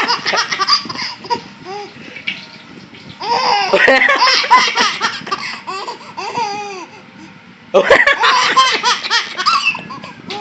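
Baby laughing in three long bouts of rapid, breathy belly laughs, one at the start, one a few seconds in and one near the end.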